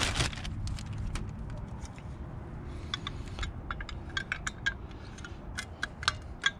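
Metal caliper cover clicking and tapping against the brake caliper and its spring clips as it is worked into position by hand, a run of light, sharp metallic clicks from about three seconds in. A brief crinkle of a plastic bag at the very start.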